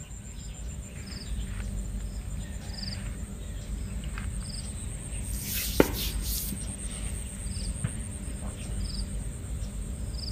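Insects chirping: short high chirps repeating about once a second over a steady high buzz, with a low rumble underneath and one sharp click about halfway through.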